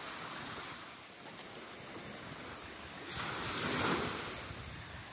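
Surf washing up onto a sandy beach, with one wave swelling louder about three seconds in and then easing off.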